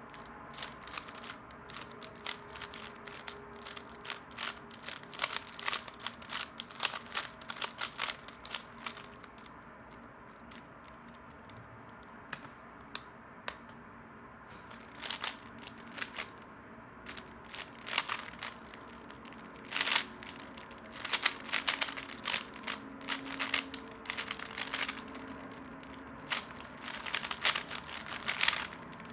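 3x3 Rubik's Cube being turned fast in a speedsolve: rapid runs of plastic clicks and clacks, thinning out for a few seconds about a third of the way in, then picking up again with a few sharper clacks.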